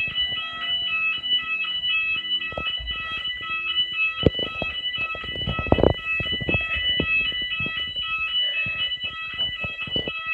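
Fire alarm sounding continuously: a shrill, multi-tone electronic beep pulsing rapidly on and off, with occasional knocks and thumps.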